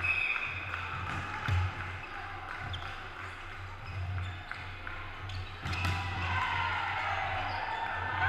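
Sports-hall ambience during a volleyball match: echoing spectator chatter with a few sharp knocks of the ball being hit or bounced, about a second and a half in and again near six seconds. It grows busier near the end.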